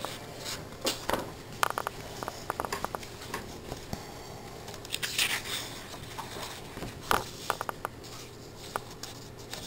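Pages of a paper colouring book being turned and smoothed flat by hand: soft paper swishes and rustles with scattered light taps and clicks.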